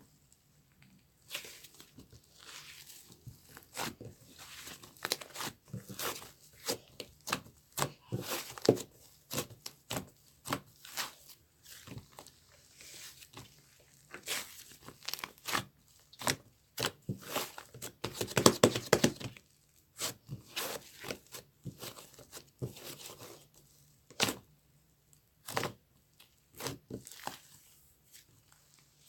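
Close-up handling noise: irregular crinkling, rustling and tearing, made of many short crackles, busiest about two-thirds of the way through.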